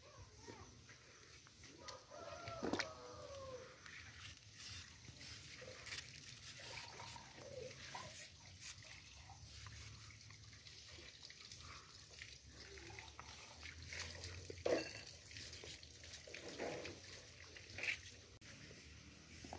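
Faint scraping and clicking of a kitchen knife peeling green cooking bananas, with chickens calling in the background; one longer gliding call comes about two seconds in.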